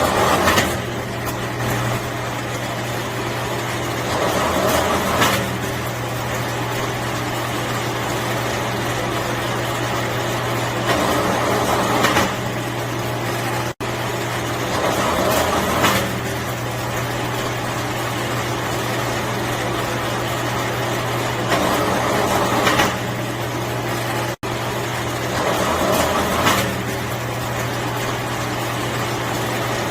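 An electric scrap-wire stripping machine's motor runs with a steady hum. Every few seconds there is a louder, noisier stretch of about a second as wire is fed through the stripping blades.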